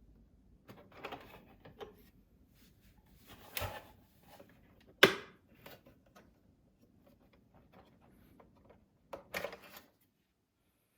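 Scattered clicks and knocks from objects being handled. The sharpest and loudest click comes about five seconds in, with shorter clusters near the start, about three and a half seconds in and near the end.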